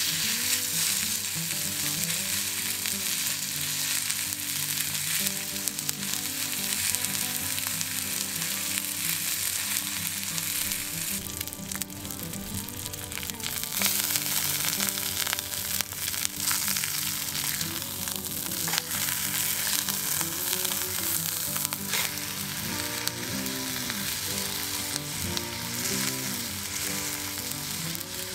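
Pre-cooked bone-in pork steak sizzling steadily as it heats in a pan, with scattered small pops.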